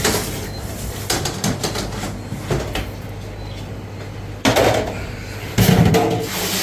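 Knocks and clatter from milk jugs being handled at a milk tank, with two louder bumps near the end, over a steady low hum.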